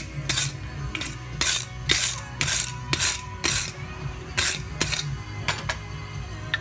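Hand-hammer blows on a red-hot steel bar on an anvil during forging, about two strikes a second with a short pause a little past halfway. A steady low hum runs underneath.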